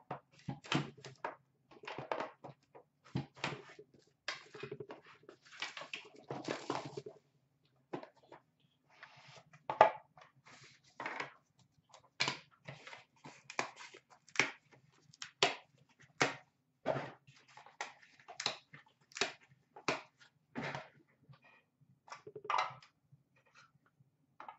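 A sealed hockey card box being opened by hand: a box cutter slitting the wrapper, then cellophane and cardboard packaging crinkling and the box and card cases being handled, as a scatter of short crinkles, clicks and taps.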